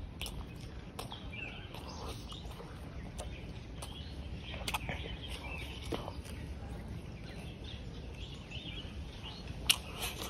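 Birds chirping against a steady low outdoor background noise, with scattered clicks and smacks of someone chewing and eating by hand close to the microphone; one sharper click near the end.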